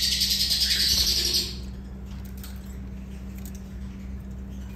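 Lovebirds giving a loud, rapid, high-pitched chatter that stops abruptly about a second and a half in, leaving only faint bird sounds.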